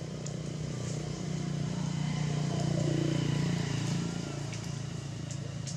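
A motor engine's steady low hum that grows louder through the middle and fades again toward the end, like a vehicle passing.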